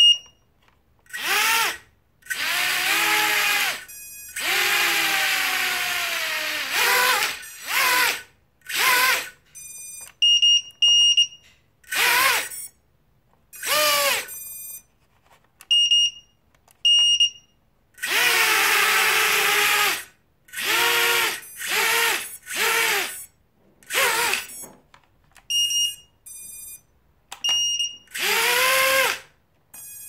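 Brushless motors of a small FPV racing quadcopter spinning up and winding down in a series of short throttle bursts, some lasting two to three seconds, with short high beeps in the pauses between runs. The quad has a fault in which a motor randomly stops and the ESC makes noise, which the owner blames on either the ESC or the motor.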